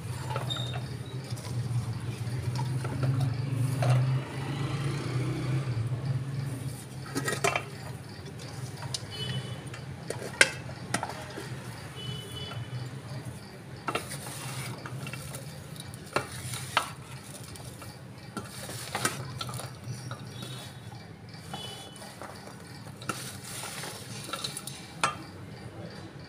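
Cut radish and carrot sticks being tossed and mixed by hand in a large steel tray, a rustling scrape, with sharp metallic clinks now and then as a steel colander knocks the tray's rim. A steady low hum runs underneath.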